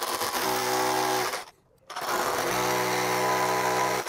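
SDS rotary hammer drill boring into brick, in two runs: it stops after about a second and starts again a little later.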